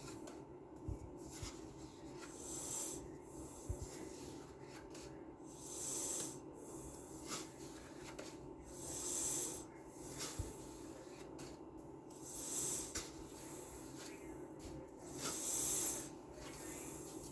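Soft rustling and rubbing close to the microphone, coming in swells every second or two with a few light clicks, over a steady low hum.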